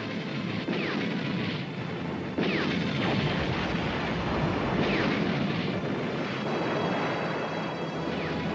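Battle sound effects: four times, a whistle falls in pitch and is followed by an explosion, the sound of incoming rounds hitting. The blast about two and a half seconds in is the loudest.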